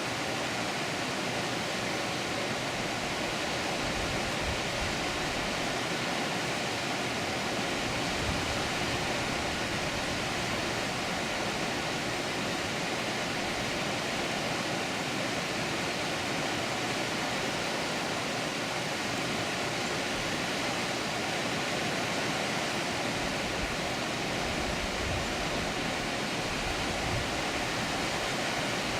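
Water pouring over a dam, a steady unbroken rushing, with a few brief low rumbles.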